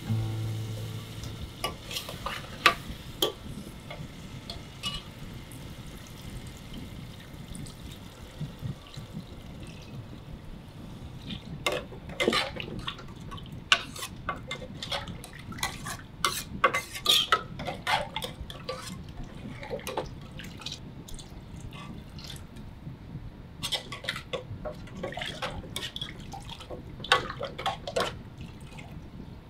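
A spoon stirring lentil dal in a stainless steel pressure cooker, scraping and clinking against the metal pot in bursts, with liquid sloshing as water is stirred in.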